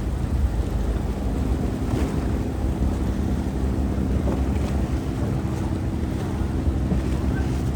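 River boat's engine running steadily, with water rushing past the hull and wind buffeting the microphone.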